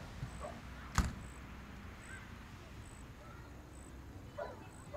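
A single sharp knock about a second in, as a tension rod topped with a board is set up against the camper's ceiling panel, with a few faint handling sounds after.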